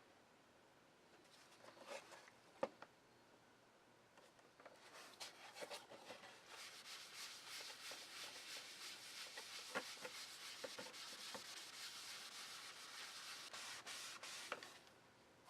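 A couple of light taps, then, about five seconds in, a fast, steady run of rubbing strokes on leather that goes on for about ten seconds and stops suddenly near the end.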